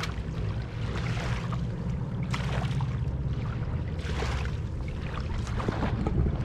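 Small waves lapping and splashing at a rocky shoreline in irregular surges about every second or two, over a steady low rumble.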